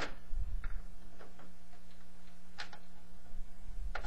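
Irregular light clicks and taps, about six over a few seconds, from a computer power-supply cable's plastic connector and wires knocking against the case and motherboard as it is worked into its socket.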